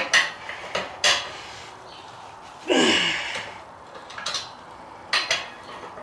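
Steel lug wrench clinking and scraping on a car wheel's lug nuts as they are loosened a quarter turn each, with sharp metal clicks and one longer grating, creaking sound about three seconds in.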